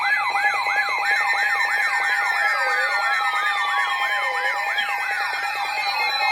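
Electronic emergency-alert alarm of layered siren tones: a fast warbling whoop about three times a second over several steady high tones, with a slower dip every second and a half and long falling glides mixed in.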